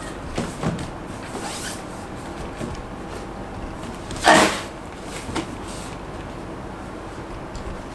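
A few short scraping, rustling noises over a low steady background, the loudest a brief rasp about four seconds in.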